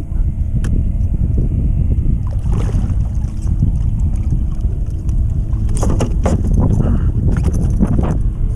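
Strong wind buffeting the microphone in a loud, steady low rumble, with splashing and knocks around the kayak as a large black drum is hauled out of the water on a lip gripper, about three seconds in and again around six to seven seconds.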